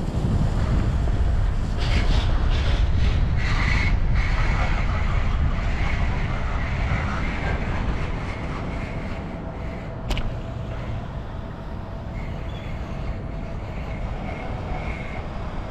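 Low rumble of a car heard from inside the cabin, louder for the first eight seconds and then settling lower and steadier. A sharp click about ten seconds in.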